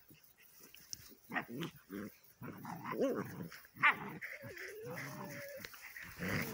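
A Borador puppy and its Labrador mother play-fighting, making short play growls and whines, with one drawn-out whine a little past the middle.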